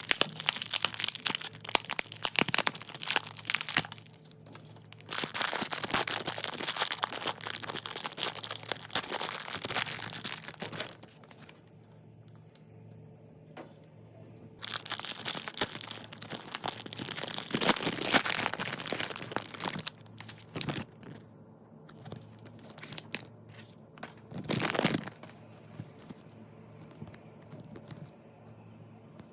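Plastic and paper packaging crinkling, crackling and tearing as a toy is unwrapped, in several long bursts of handling with quieter pauses between them.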